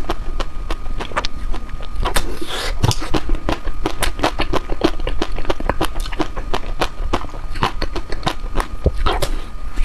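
Close-miked eating of chocolate ice cream: dense, irregular crackling clicks of biting and chewing, with a faint steady tone underneath.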